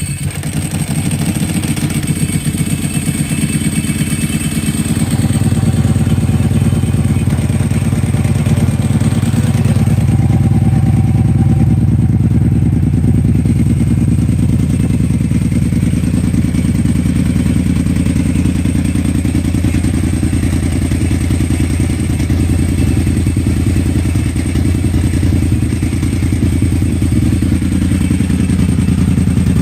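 Ducati 999S's L-twin engine firing up at the very start, then idling steadily through Termignoni exhausts. It is a cold start with the fast-idle lever raising the revs, and it gets a little louder about five seconds in.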